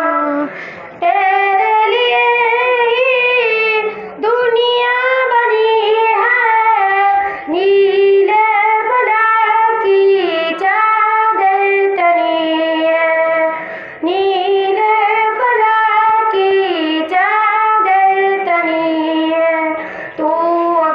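Girls' voices singing an Urdu naat through microphones: long held phrases, with short breaks for breath every few seconds.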